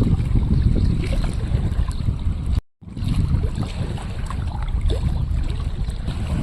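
Strong gusty wind buffeting the microphone over the wash of choppy river water. The sound cuts out completely for a moment about two and a half seconds in.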